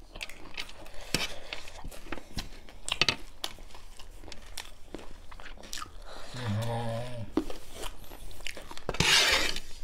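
Close-up crunching and chewing of dry chicken chatpate, a spicy puffed-rice snack, with many quick crisp crackles throughout. There is a short hummed "mm" about two-thirds of the way through and a breathy rush of air near the end.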